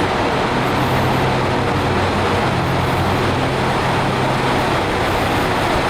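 JR Hokkaido KiHa 183-series diesel multiple unit's engines idling, a steady rumble with a low hum that weakens about five seconds in.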